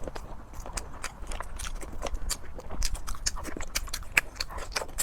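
Close-up chewing and lip-smacking while eating sticky rice: a run of irregular wet mouth clicks, several a second.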